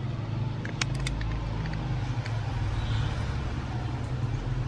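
Steady low background rumble, with a few sharp small clicks about a second in as plastic LED butterfly night lights are handled.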